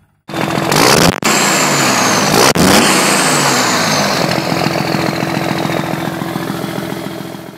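A loud vehicle engine revving, its pitch swinging up and down, with a high whine that glides downward. It cuts in abruptly after a moment of silence, has two brief dropouts, and fades out toward the end.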